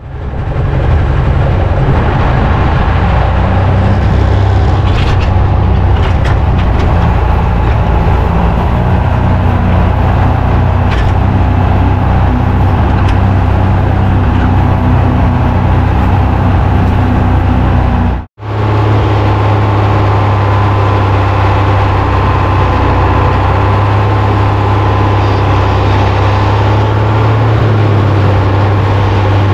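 Tractor engine running steadily while pulling a chisel plow through a field. The sound drops out for an instant about two-thirds of the way through, then carries on at a slightly different pitch.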